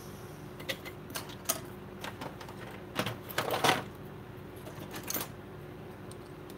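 Hard plastic clacks and knocks as a Nerf blaster's shell halves are handled and set down on a workbench, with a short scrape about three and a half seconds in that is the loudest sound. A low steady hum runs underneath.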